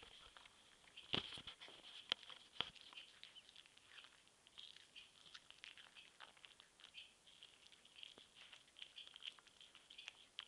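A cat eating from a saucer: faint, irregular clicking and smacking of its mouth and tongue as it chews and licks, with a few sharper clicks in the first few seconds.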